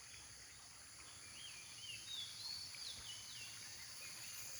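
Faint outdoor ambience of insects buzzing steadily at a high pitch, with a bird giving a quick series of short chirping notes about midway through.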